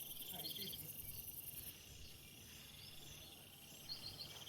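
Insects trilling faintly. A very high steady buzz stops about a second and a half in, while shorter pulsing trills come in repeated bursts, with a few quick high chirps.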